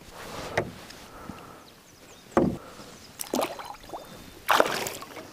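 A few sharp knocks and thumps on a wooden canoe while a caught smallmouth bass is handled and let go. The heaviest, lowest thump comes about two and a half seconds in, followed by a splash as the fish goes back into the water.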